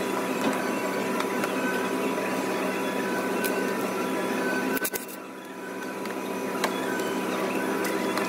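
Steady mechanical whirring hum in a repair shop, with a few sharp clicks just before five seconds in as a cordless power tool is worked on a bolt in the engine bay. A short dip in loudness follows the clicks.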